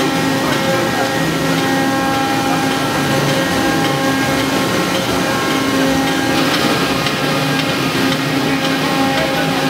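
Sugar cane mill machinery running: a loud, steady industrial rumble with a constant hum of several held tones. About two-thirds of the way through, a brighter hiss and faint clicking or rattling come in.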